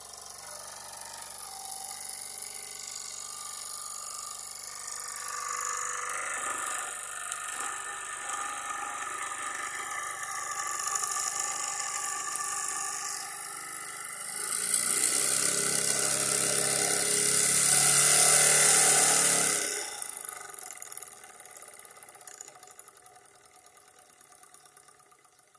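Jensen #70 toy live steam engine running under steam with a steady whir that slowly grows louder. About two-thirds of the way through, a loud hiss of escaping steam lasts about five seconds and cuts off suddenly, and the engine then fades down.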